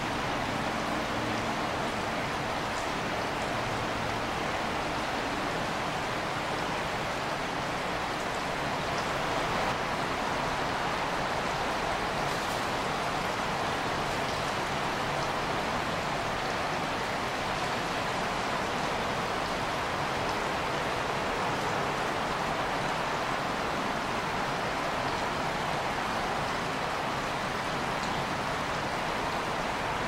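Steady rushing of flowing creek water, an even hiss that holds level without swells or breaks.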